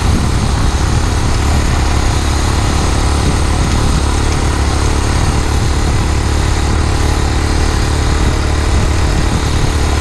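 Small 49 cc four-stroke engine of a motorized bicycle running steadily under way at about 20 mph, during its break-in. A heavy, steady low rumble runs under it throughout.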